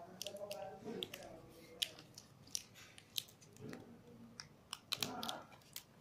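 Scattered small clicks and crinkles of a homemade paper-covered cardboard box being handled as its lid is lifted open.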